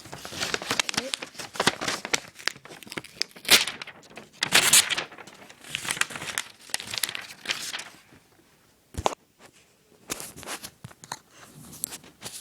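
Sheet of paper crinkling and tearing as a pocket knife blade cuts through it, in a run of rough rustling strokes; about eight seconds in it gives way to a few scattered clicks.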